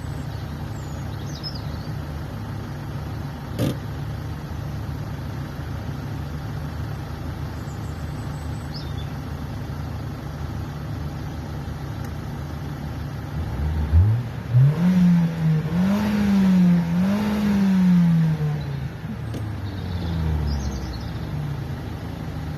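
An off-road 4x4's engine idling steadily, with a single knock a few seconds in. Past the middle it is revved hard several times, the pitch climbing and dipping, then drops back to idle.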